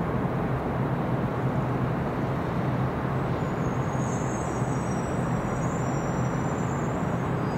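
Steady roar of engines, with a thin high whine that comes in about three seconds in and fades near the end.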